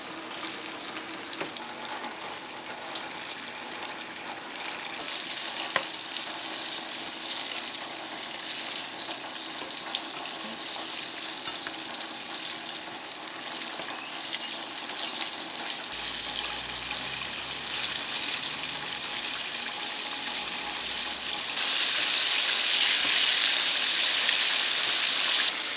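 Batter-coated chicken pieces deep-frying in hot oil in an aluminium kadai: a steady sizzle with fine crackling, stirred with a slotted spoon. The sizzle gets louder about five seconds in and again a few seconds before the end.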